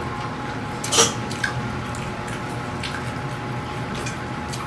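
Wet chewing and small mouth clicks of someone eating stir-fried pork intestine, with one sharp click about a second in, over a steady hum.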